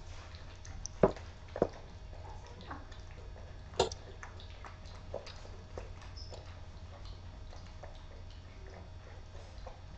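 A litter of young boxer puppies eating together from a stainless steel bowl: wet lapping and smacking throughout, with sharp clinks against the metal bowl, the loudest about a second in, again half a second later, and near four seconds.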